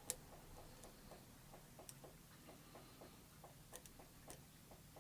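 Faint metallic clicks of a hook pick working the pins of a pin-tumbler lock held in a false set, a few of them sharper and louder, over a steady faint ticking about four times a second.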